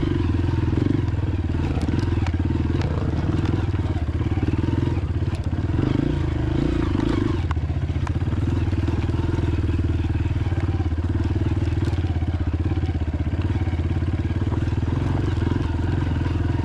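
Dirt bike engine running at low, fairly steady revs on rocky singletrack, the note easing slightly a little under halfway through. Light clicks and rattles from the bike over the rocks.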